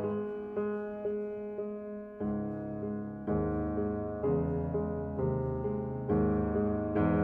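Slow piano music: single notes struck about twice a second and left to ring over low chords that change about once a second.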